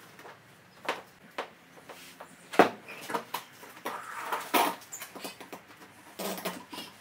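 A car dashboard crash pad and its upholstery cover being handled on a workbench: the cover rubs and rustles, with a series of sharp knocks and taps as the pad is turned over and lifted, the loudest a bit more than two and a half seconds in.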